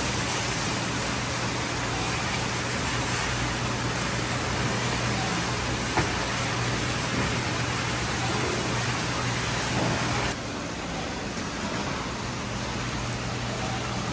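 Water circulating and aerating in a live-fish tank: a steady rushing hiss over a low hum, with one faint click about six seconds in. The hiss drops abruptly about ten seconds in.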